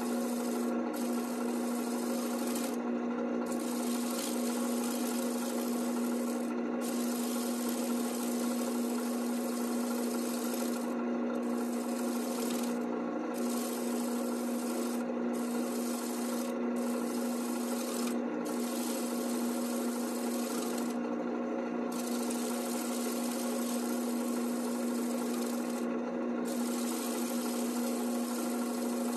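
Wood lathe motor humming steadily while a scraper cuts a spinning black cherry bowl, a continuous rasping hiss of wood being shaved. The cutting noise breaks off briefly about ten times as the tool comes off the wood, while the hum runs on.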